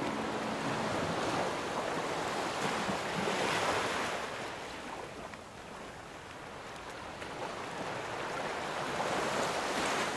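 Sea surf: waves washing in and drawing back. They swell about three and a half seconds in, ebb, then swell again near the end.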